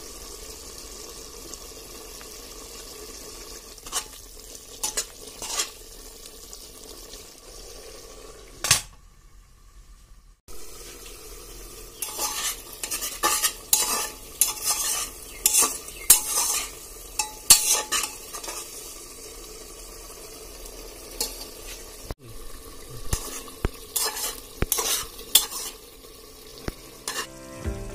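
Chicken masala sizzling and bubbling in an open pressure cooker, while a metal ladle scrapes and knocks against the pot in bursts as it is stirred, busiest in the middle and near the end.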